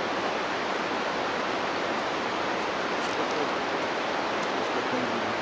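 Steady rushing of a fast mountain river: an even hiss of running water with no let-up.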